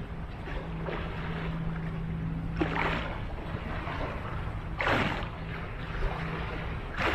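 Small waves washing and splashing against a concrete seawall step, with two louder splashes about three and five seconds in. Wind rumbles on the microphone, and a steady low hum runs underneath.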